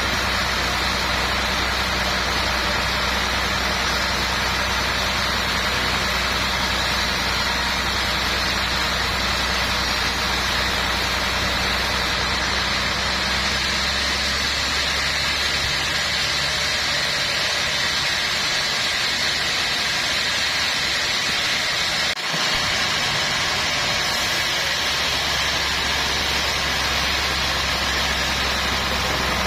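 Sawmill machinery running with a steady drone and a low engine-like hum, broken by a brief dip about three-quarters of the way through.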